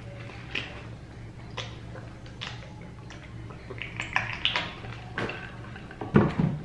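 Mouth sounds of drinking from a tumbler and then chewing, heard as a string of short clicks and swallows about a second apart over a low steady hum. A louder thump comes near the end.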